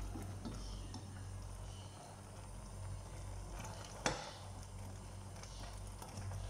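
Chicken feet simmering in sauce in a stainless steel pot, with faint stirring noises and one sharp clink of the ladle against the pot about four seconds in, over a low steady hum.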